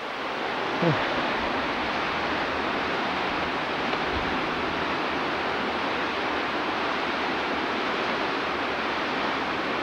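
Steady rush of a stream cascading over rocks in a small waterfall.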